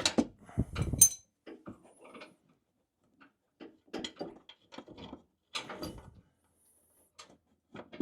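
Irregular metallic clicks and knocks of a wrench working on the front shock absorber's top mounting nuts, with short pauses between.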